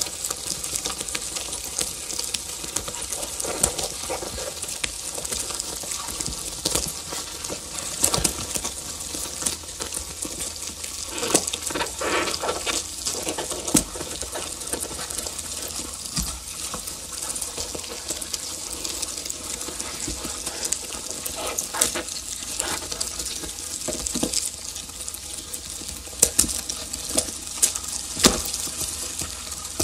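Live noise music from modular synthesizer electronics: a dense hissing, crackling texture full of irregular clicks and pops over faint steady tones. It swells into louder crackle around the middle, and a few sharp pops stand out near the end.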